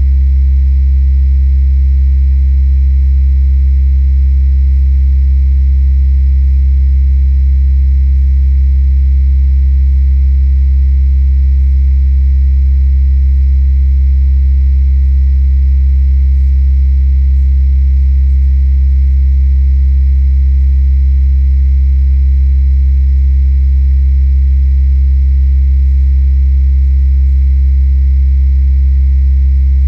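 A constant deep hum or rumble, heaviest in the bass, with fainter steady tones above it and no change. It was recorded inside a safe with the treble cut and the bass boosted, and the recordist attributes it to the electric grid's power lines.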